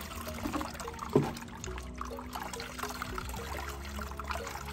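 Watery blended melon seed mixture trickling through a strainer as it is strained, with one sharp knock about a second in.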